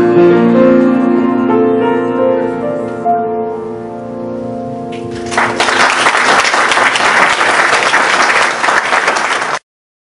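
Grand piano rings out the song's final chords, which fade over about five seconds. Audience applause then breaks out and cuts off abruptly near the end.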